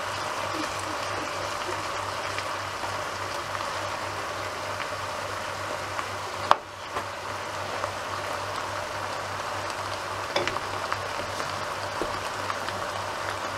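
Chopped vegetables and chunks of veal sizzling steadily in a frying pan while a wooden spoon pushes the meat around. One sharp knock about six and a half seconds in, and a few light clicks a little after ten seconds.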